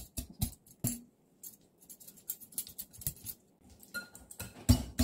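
A run of light, irregular clicks and taps from kitchen things being handled, several a second. Music and a voice come in near the end.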